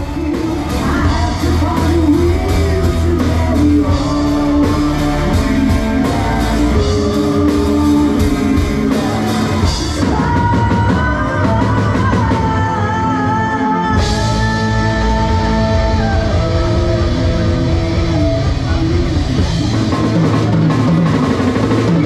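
Live rock band playing a song: a woman singing lead over electric guitar and a drum kit.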